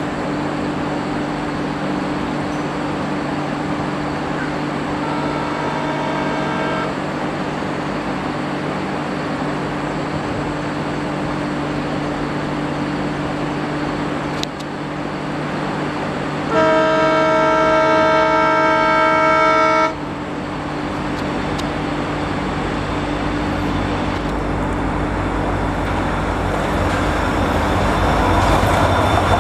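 A WDP-4D diesel locomotive drones steadily as it approaches, and its horn sounds twice: a fainter blast about five seconds in, then a long, loud blast of about three seconds just past the middle. The rumble of the locomotive and its train grows louder near the end as it draws up.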